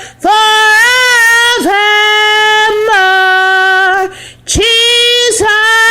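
A woman singing a slow devotional line with no instruments heard, drawing out long held notes on the words "forever and ever, forevermore", with a short break for breath about four seconds in.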